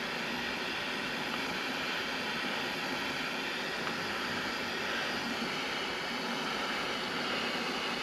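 Handheld butane torch burning with a steady hiss while it shrinks heat-shrink tubing over a crimped wire terminal.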